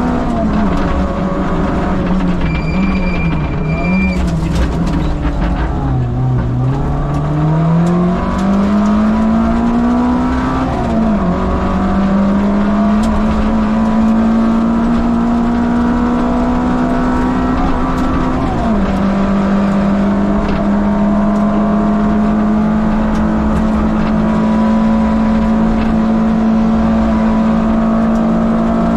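Peugeot 205 Rallye Group A's 1.3-litre four-cylinder engine driven hard on a rally stage. The revs fall through downshifts to a low point about six seconds in, climb again with gear changes at about eleven and nineteen seconds, then hold near-steady at high revs. A brief high-pitched tone sounds about three seconds in.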